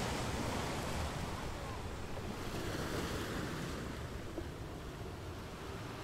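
Ocean surf: waves breaking and washing up a sandy beach, a steady rushing hiss that eases slightly near the end.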